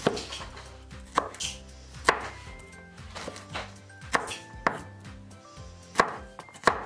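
Kitchen knife chopping garlic cloves on a wooden cutting board: a series of irregular knocks of the blade on the board, about one every half second to a second.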